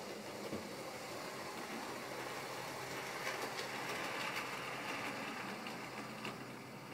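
HO-scale model train running on the track: a steady motor hum with wheel-on-rail noise and a few light clicks, getting louder for a couple of seconds in the middle.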